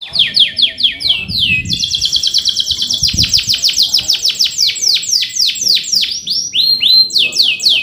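Male canary in full song. It opens with a run of clear whistled notes falling in pitch, about four a second, then breaks into a very fast rolling trill of falling notes about a second and a half in. A short rising phrase comes near the end before another fast trill.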